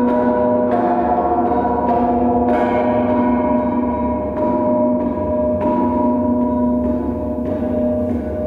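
Handmade metal sound sculptures struck several times, giving gong-like ringing tones that overlap and hold on between strikes.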